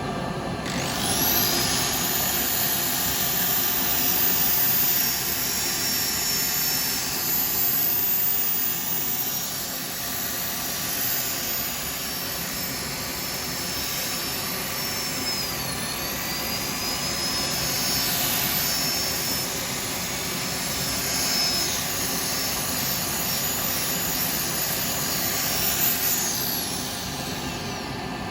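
Wood lathe running while a turned bowl is sanded at 400 grit, a steady rushing machine noise. A high whine rises about a second in and falls away near the end, as a motor spins up and winds down.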